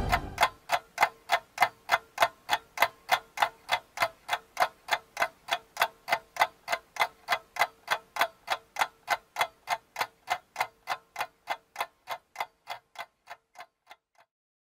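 Clock-like ticking, about three even ticks a second over a faint steady tone, fading away gradually until it stops shortly before the end.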